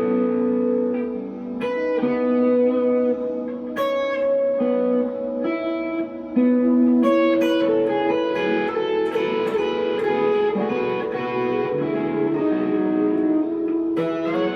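A 1963 Fender Telecaster electric guitar played through an amplifier, with picked single notes and chords that ring on after each attack.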